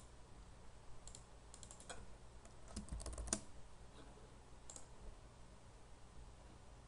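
Faint computer keyboard keystrokes and mouse clicks in a few short clusters, typing new numbers into fields, over a low steady hum.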